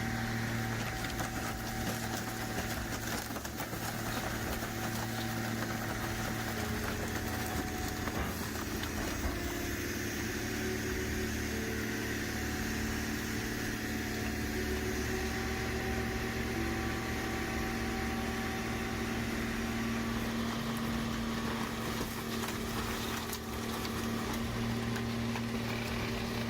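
Heavy machine's engine running steadily, a low even hum that shifts a little in pitch, with a few faint knocks now and then.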